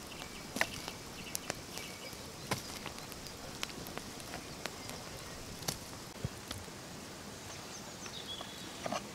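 Open wood campfire crackling: irregular sharp snaps and pops, a few each second or two, over a steady outdoor hiss.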